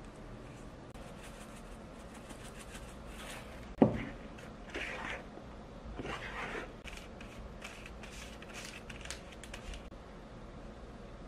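Kitchen prep handling: one sharp knock about four seconds in, followed by two short scraping, rustling stretches and scattered light ticks.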